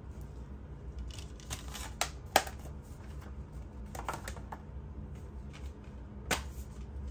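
Metal steelbook cases being handled: a scattering of sharp clicks and taps as the cases are picked up, closed and set down, the loudest about two and a half seconds in.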